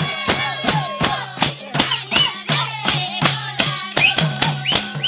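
Folk music with a fast, steady beat of drum strokes and jingling, rattling percussion over a low drone, with a sliding melodic line on top.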